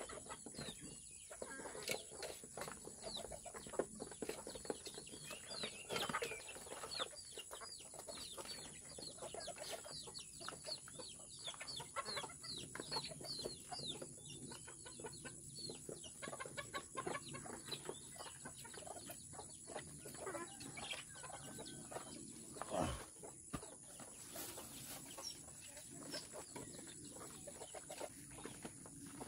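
A flock of Filipino native chickens clucking while feeding, with a busy run of short, high, falling peeps over the clucks. One louder falling sound stands out about two-thirds of the way in.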